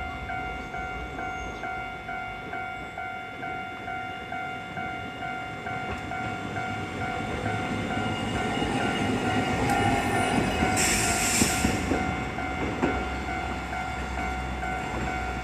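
A Japanese level-crossing alarm rings its repeating electronic "kan-kan" tone throughout. A Hankai Tramway streetcar rumbles past, loudest from about ten to twelve seconds in, with a brief high hiss near its peak.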